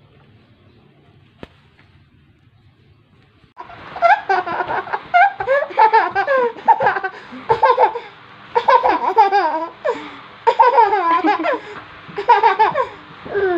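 A toddler laughing in repeated high-pitched belly-laugh bursts, starting suddenly about three and a half seconds in; before that only a faint room hum and a single click.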